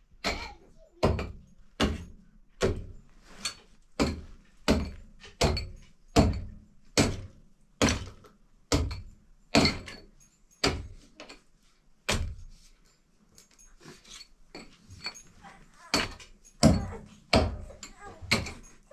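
Steady, repeated blows of a heavy hand tool breaking into a floor, each a dull thud, about four strikes every three seconds. The strikes pause for about three seconds past the middle, then resume.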